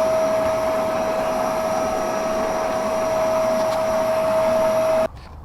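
Vacuum cleaner running steadily with a high motor whine, powered from a newly wired outlet to test it, then switched off suddenly near the end.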